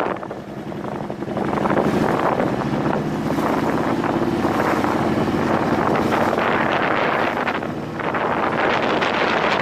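Motorcycle engine running under way, its note climbing slowly as the bike gathers speed, with a short dip about eight seconds in, mixed with heavy wind noise on the microphone.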